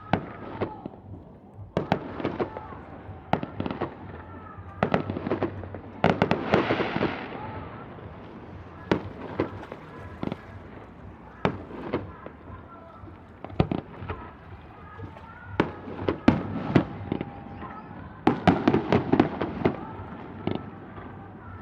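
Fireworks display: aerial shells going off in a string of sharp bangs, bunched in clusters. About a third of the way in there is a crackling, hissing shower, and near the end a rapid volley of bangs.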